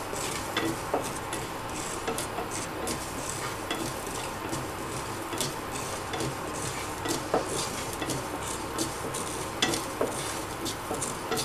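Wooden spatula stirring mustard and fenugreek seeds as they dry-roast in a non-stick frying pan: a steady scraping rustle of seeds with many scattered small clicks.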